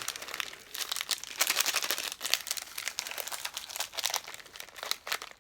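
Plastic snack packet crinkling and rustling as it is handled, a dense run of crackles through the whole stretch.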